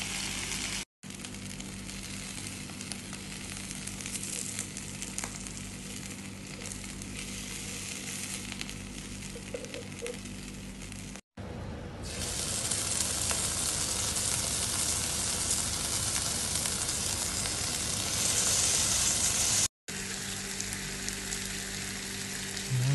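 Sauce-coated chicken drumettes sizzling on a hot grill pan: a steady frying hiss that grows louder about halfway through, broken by three very brief dropouts.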